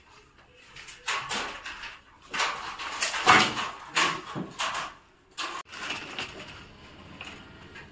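Irregular scraping and clattering in a string of bursts, loudest in the middle, amid work on the galvanized steel channels of a false-ceiling frame.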